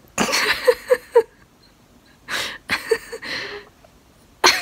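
A woman laughing breathily in short bursts: a run of three quick giggles near the start, another breathy laugh in the middle, and a sharp gasp of breath near the end.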